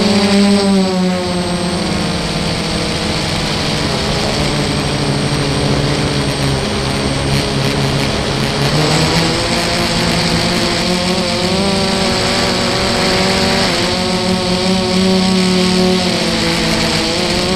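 FPV quadcopter's motors and propellers whining, heard from its onboard camera. The pitch rises and falls with changes of throttle, shifting noticeably about nine seconds in and again near the end.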